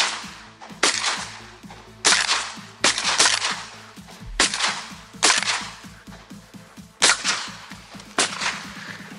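Shotgun shots fired in a series, about seven in nine seconds and unevenly spaced. Most are loud and close, and a couple are fainter.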